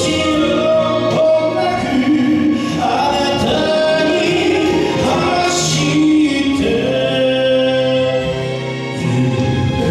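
Male enka singer singing live into a handheld microphone, his voice amplified over instrumental accompaniment.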